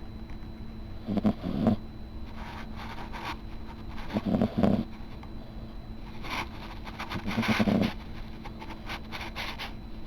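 Kitten snoring in its sleep: a short low snore of two quick pulses about every three seconds, with softer breathy exhales in between.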